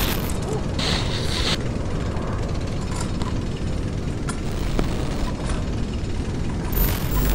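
A steady, dense low rumble with scattered mechanical clicks and ticks, and a short hiss about a second in.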